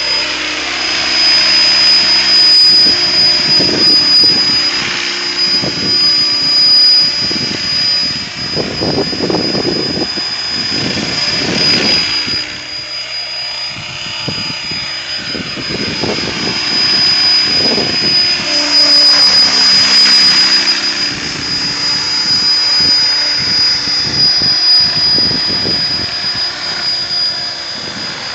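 Mikado Logo 600 electric RC helicopter in flight: a steady high-pitched whine from its motor and drive gears over the swish of the rotor blades. The sound swells several times as it passes close and drops as it flies out low and far off.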